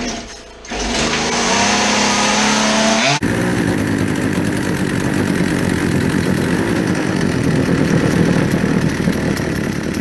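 Two-stroke chainsaw engine running and revving up, then, after an abrupt cut, running steadily at high speed.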